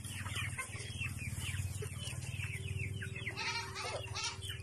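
A flock of Rhode Island chickens calling: a rapid stream of short, falling peeps and clucks, with a few louder calls near the end.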